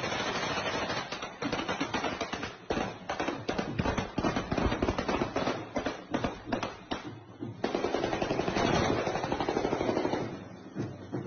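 Celebratory gunfire: rifles fired into the air in rapid bursts of live rounds. There are two long, dense bursts, one at the start and one from about seven and a half seconds in. Between them come quick runs of separate shots, and the firing thins out near the end.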